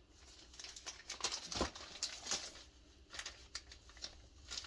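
Rustling and crinkling of a mail package being handled and opened, with scattered small clicks and crackles.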